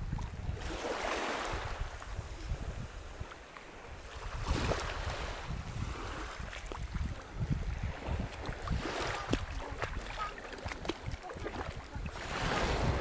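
Small waves washing in shallow sea water, surging about every four seconds, with wind buffeting the microphone.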